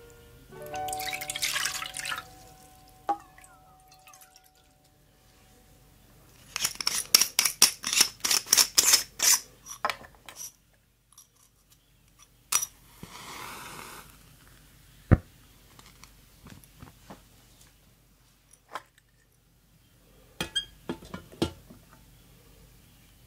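Water poured into a metal mess tin, then a quick run of light metal clinks and knocks from camp cookware. A match is struck with a short hiss, and more clinks follow as the aluminium mess tin is set on a small folding stove.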